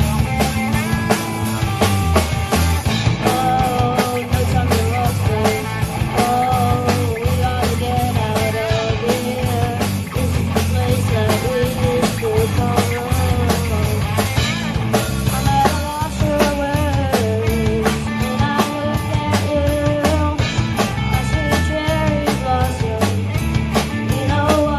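Rock music soundtrack with a driving drum kit beat, bass, and a wavering lead melody line.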